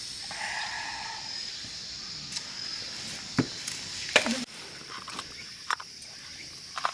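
A few sharp clicks and knocks, the loudest a little past halfway, over a steady high-pitched tone.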